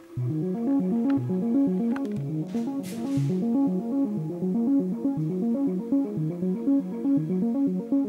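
Background music: a quick, repeating arpeggio of notes.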